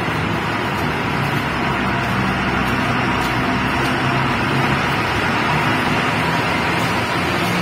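Steady drone of diesel machinery running inside a rock tunnel: a low engine hum under a constant rushing noise, with no breaks or changes.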